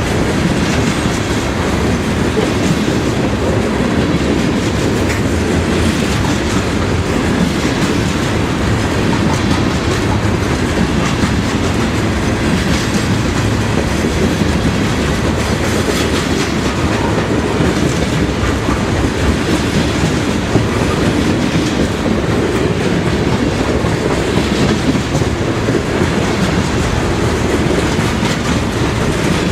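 CSX freight train's cars rolling past, wheels clicking steadily over the rail joints in a continuous rumble.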